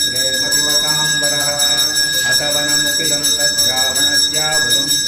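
Temple bell rung continuously, a fast even clanging with its ringing tones held throughout, over voices chanting in long held notes.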